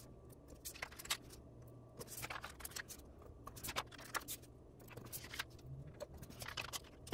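Glitter header stickers and planner pages being handled: quiet, irregular paper rustles, crinkles and small taps over a faint low hum.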